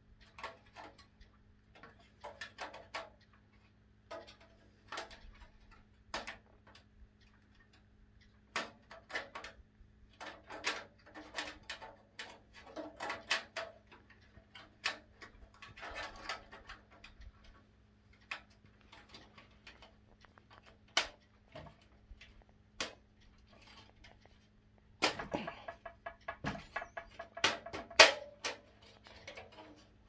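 Thin stamped-metal motherboard I/O shield clicking and rattling as it is pushed and snapped into the rear opening of a PC case, with irregular clicks throughout and a louder cluster near the end.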